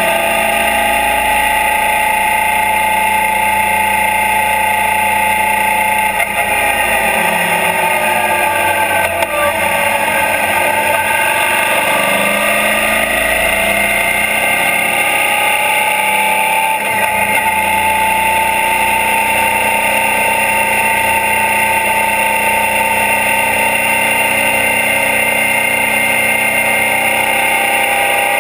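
Suzuki DL650 V-Strom's V-twin engine running under way, heard close up from the engine guard with heavy wind and road noise. The engine note dips in pitch near the middle and then climbs again as the bike slows and picks up speed.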